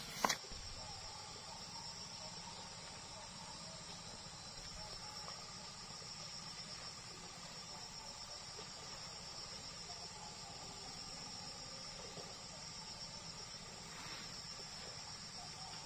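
Insects chirring steadily in a high, even drone, with a couple of soft knocks in grass right at the start.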